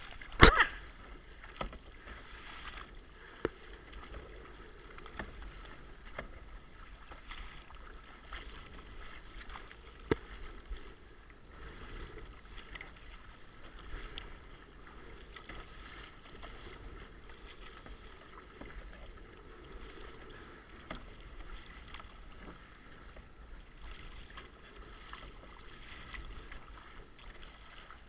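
Kayak paddling: a double-bladed paddle dipping and splashing through choppy sea water, with water washing against the plastic hull. A loud sharp knock comes about half a second in, and smaller knocks follow now and then.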